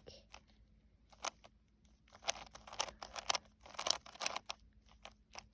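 A 3x3 Rubik's cube being turned by hand: its plastic layers clicking and clacking in an irregular run, sparse at first and then quick and dense from about two seconds in.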